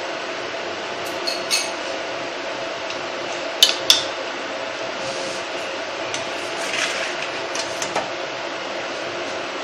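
A metal spoon clinking against a glass bowl of rava batter as it is stirred: a few light clinks, with the loudest pair about four seconds in. Under them runs a steady hum.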